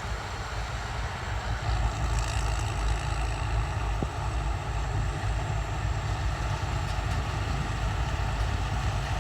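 Rice combine harvester's diesel engine running steadily, a continuous low rumble with no change in pace.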